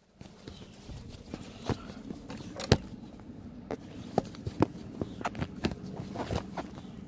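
Handling noise as a phone or camera is propped up: irregular clicks and knocks, the sharpest about two and a half seconds in, over a low steady hum.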